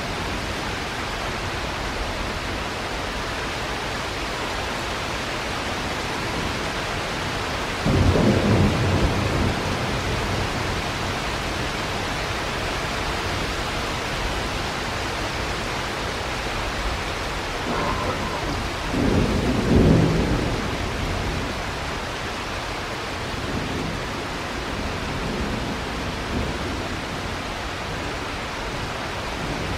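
Steady heavy rain during a thunderstorm, with thunder rumbling twice: once starting suddenly about eight seconds in, and again louder near the middle.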